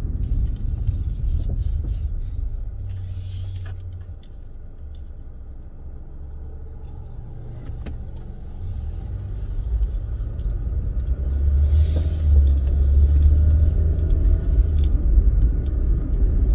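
Car driving, heard from inside the cabin: low engine and road rumble that eases off for a few seconds, then grows louder about eleven seconds in as the car speeds up, with a few faint clicks. The rear suspension knock being hunted is not plainly heard.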